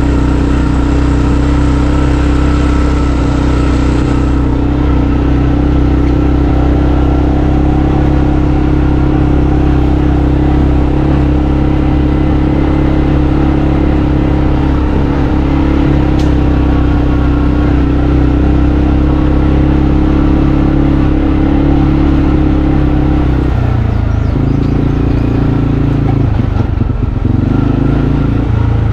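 Off-road vehicle engine running at a steady, even speed. A little before the end the engine note shifts and wavers.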